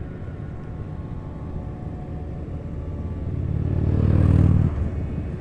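Harley-Davidson V-twin motorcycle engine running at road speed, with wind rush. It swells louder a little past halfway through and drops back sharply about a second later.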